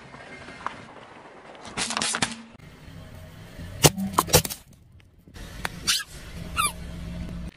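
A car tyre rolling slowly over small plastic toys and crushing them, with the car's low rumble underneath: a quick run of sharp plastic cracks and pops about four seconds in. Near the end a rubber duck toy squashed under the tyre gives a couple of high squeaks that fall in pitch.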